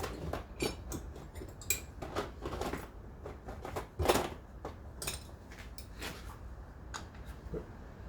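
Metal hand tools and trimmer parts clinking and knocking together in a scatter of irregular light taps, with a few sharper knocks, as a workbench teardown goes on.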